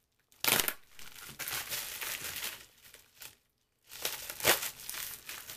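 A mailing envelope being torn open and crinkled by hand, in uneven rustling and tearing bursts that start about half a second in, pause briefly around three seconds, then pick up again.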